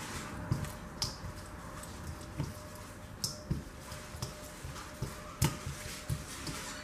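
A hand mixing masala-coated fish slices in a stainless steel bowl: soft wet squishing, with irregular light clicks and taps as fingers and fish touch the steel.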